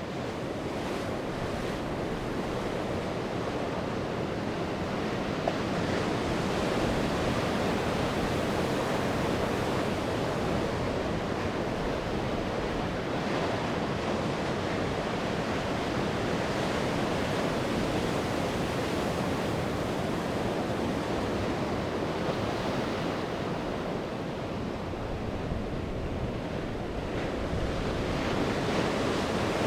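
Sea waves breaking and washing up on the shore in a continuous surf, swelling a little about a third of the way in and again near the end, with some wind.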